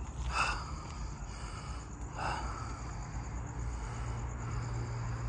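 Quiet outdoor ambience with a low steady rumble and two brief soft sounds, about half a second and two seconds in.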